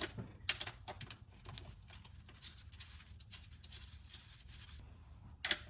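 Socket wrench with a 10mm socket working a bolt on the engine, giving many light, irregular metallic clicks and taps, with a louder clatter near the end.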